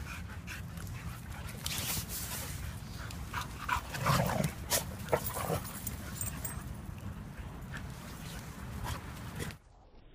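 Puppies playing, with short yips and whimpers over scuffling and clicking. The yips cluster about four to five and a half seconds in, and the sound drops away abruptly near the end.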